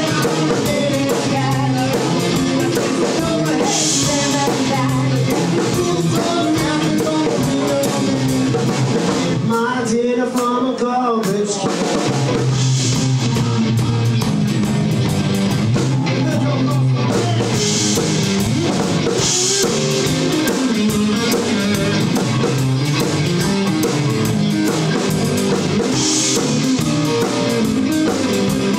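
Live rockabilly band playing an instrumental stretch: electric guitar over bass and drum kit. Just before the middle, the bass and drums drop out for about two seconds while the guitar plays sliding notes alone.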